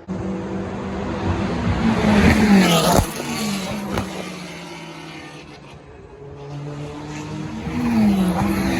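Racing cars passing at speed, the engine note swelling and then dropping in pitch as each goes by. One loud pass peaks about two to three seconds in and cuts off suddenly, a weaker one follows, and another builds near the end.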